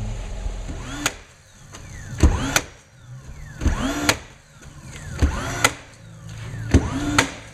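Background music with a steady beat: pairs of sharp hits with sweeping synth tones, repeating about every one and a half seconds.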